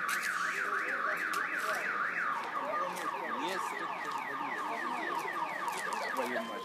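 Car alarm sounding. A fast up-and-down warble changes about two seconds in to rising sweeps repeated about four times a second.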